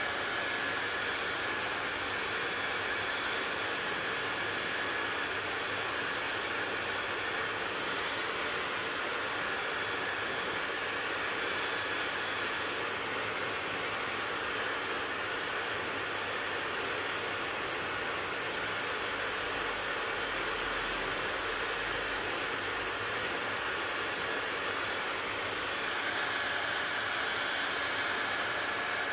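Hair dryer running steadily: a constant rush of blown air with the fan's hiss, its tone shifting slightly a couple of times.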